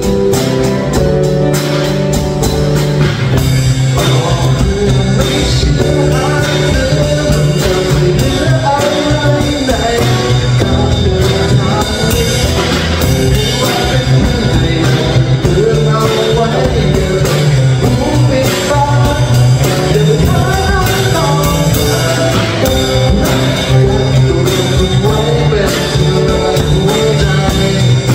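A small live band plays a song: two acoustic guitars strummed, a Yamaha drum kit keeping a steady beat, and a man singing into a microphone.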